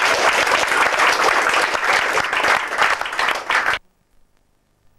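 Audience applauding, a roomful of hands clapping, which cuts off suddenly a little under four seconds in.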